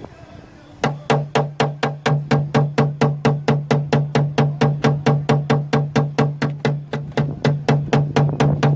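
Rapid, evenly spaced sharp taps, about five a second, each with a short low ring, starting about a second in.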